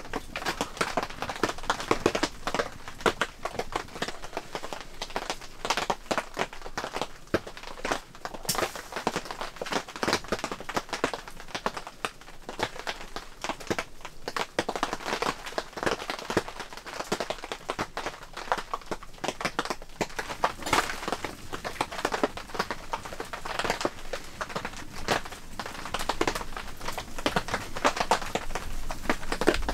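Wood fire crackling in a small wood-burning stove, with a dense, irregular run of pops and ticks.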